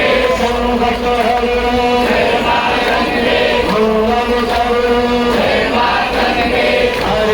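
Male voices chanting Hindu puja mantras, with long held notes that step from one pitch to the next.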